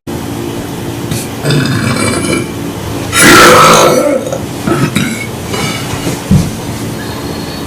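A young man belching at length, in one drawn-out stretch of burping that swells and fades. It is loudest about three seconds in.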